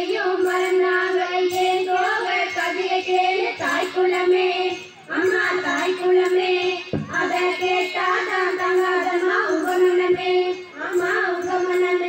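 Girls singing a Tamil villupattu bow-song together in long, held melodic lines over a regular percussive beat, with a short break in the singing about five seconds in.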